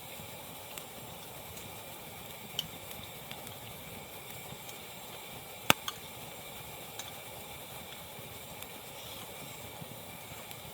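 Wood fire burning with a steady hiss and scattered crackles, and one sharp pop about halfway through.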